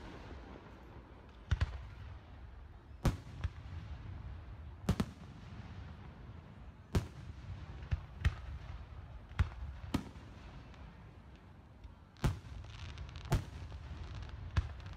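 Aerial firework shells bursting: a dozen or so sharp bangs at irregular intervals, some in quick pairs, over a steady low rumble.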